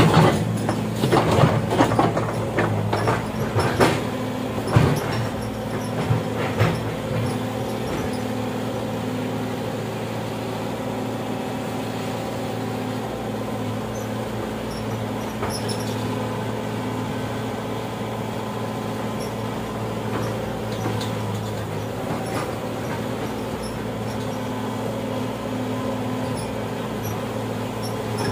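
Excavator diesel engine running steadily, with a run of metallic clanks and knocks over the first several seconds.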